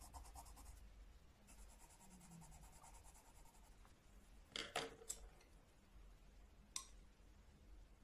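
Red watercolour pencil scribbling faintly on watercolour paper, a soft dry scratching, then a few light clicks and taps on the table about halfway through and another one near the end.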